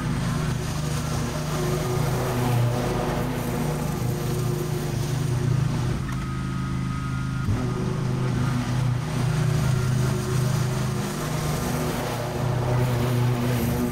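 Stand-on commercial mower's engine running steadily under load while it cuts long grass, with a low, even hum that thins briefly about six seconds in and then picks back up.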